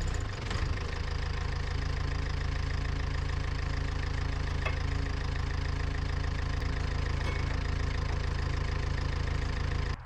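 An engine running steadily, then cutting off abruptly near the end.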